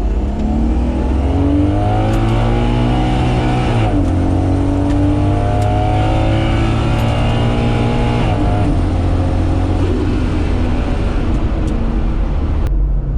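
Turbocharged 2JZ-GTE inline-six at full throttle during a drag strip pass, its pitch climbing through each gear with a shift about 4 seconds in and another about 8 seconds in, then backing off near the end.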